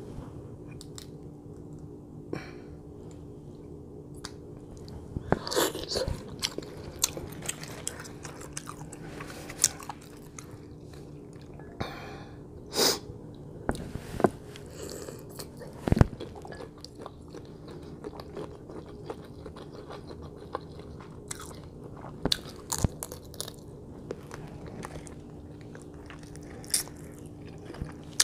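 Close-up eating sounds of a person eating a seafood boil by hand: wet mouth smacks and chewing of shrimp, with scattered sharp clicks, loudest around 13 and 16 seconds in. A steady low hum runs underneath.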